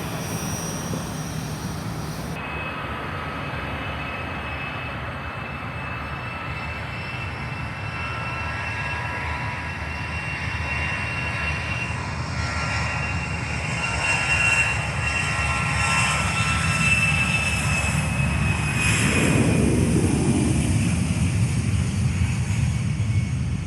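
Airliner engines running as the plane passes: a steady high whine over a rumble that grows louder, then drops in pitch as it goes by about 19 seconds in.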